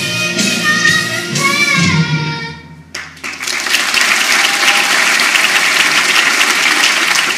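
An ensemble of young voices singing the last held notes of a song over backing music, which ends about two and a half seconds in. Then an audience applauds steadily.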